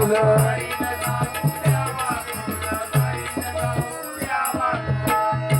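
Instrumental interlude of live Marathi bhajan music: a melody over a steady drum beat of about two strokes a second, with shaken jingling percussion; the beat drops out briefly near the end, then resumes.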